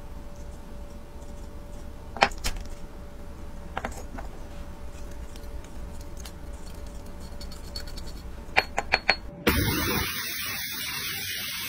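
Tweezers and small watch parts of a Tissot movement clicking and tapping a few times as it is worked on, with a quick run of clicks near the end. Then, a couple of seconds before the end, an ultrasonic cleaner starts running with a loud, steady hiss.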